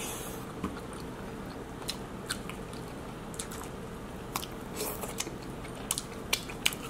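Close-up eating of king crab legs in butter sauce: wet chewing and biting with scattered sharp clicks and crackles of shell every second or so.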